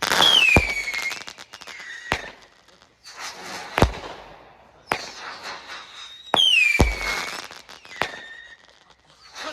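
Consumer fireworks going off: two whistles that fall in pitch, near the start and about six seconds in, among a series of sharp bangs.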